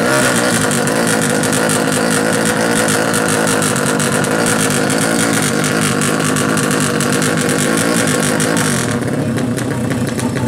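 Tuned 350cc carburetted Yamaha MX-based drag bike engine held at high revs at the start line, a loud, raspy running sound. About nine seconds in it drops back to lower revs.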